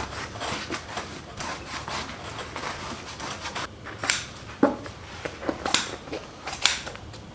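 Vinyl leatherette being pulled and rubbed down by hand over a glued fiberglass panel: irregular rubbing and rasping, with a few sharper scrapes about four seconds in.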